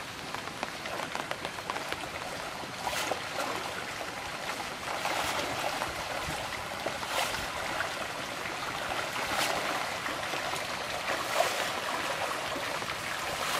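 A crowd of pangasius catfish splashing and churning at the pond surface in a feeding frenzy: a steady wash of water noise with louder splashes every two seconds or so.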